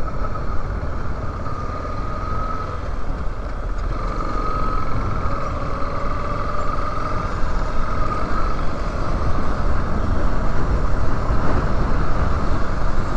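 Yamaha Lander 250 single-cylinder motorcycle engine running while riding, under heavy wind rumble on the helmet-mounted microphone; it grows a little louder in the last few seconds.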